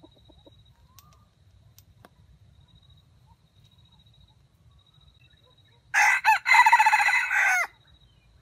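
Junglefowl rooster crowing once, near the end: a sharp crow of under two seconds that opens with two short stabs and ends on a falling note.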